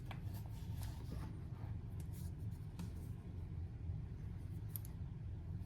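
Faint handling sounds: a few light clicks and soft rubbing as the smartwatch and its leather band are handled, over a steady low hum.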